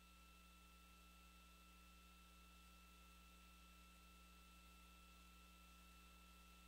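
Near silence: only a faint steady hum with two thin, unchanging high-pitched tones.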